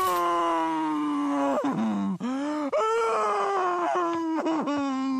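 A cartoon cow's long, pained cry as a hot branding iron is pressed into its side: one drawn-out voiced wail that sags slowly in pitch, broken by a few short catches in the middle before it carries on.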